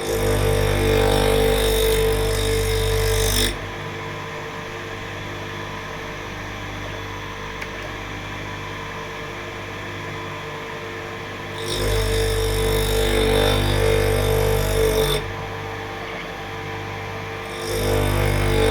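Small electric surface grinder (0.55 kW, 3000 rpm motor driving a 125 mm grinding stone) running steadily, with three loud stretches of grinding, each a few seconds long, as the stepper-driven table carries the workpiece under the stone and back; the stone has just been lowered 5 micrometres closer to the work.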